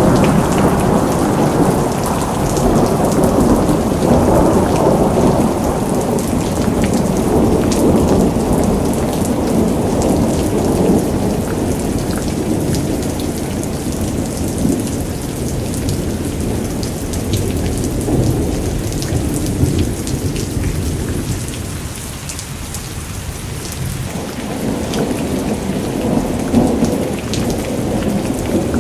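Thunderstorm: heavy rain falling steadily with rolling thunder rumbling under it. The rumble eases off about three-quarters of the way through, then builds again near the end.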